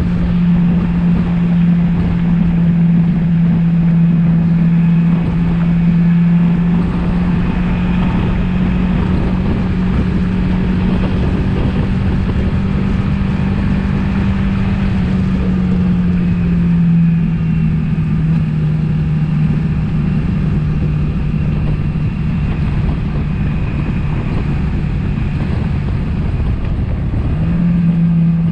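Suzuki V-Strom motorcycle engine running steadily under way, with wind rushing over the microphone. The engine note drops lower about halfway through and jumps back up near the end.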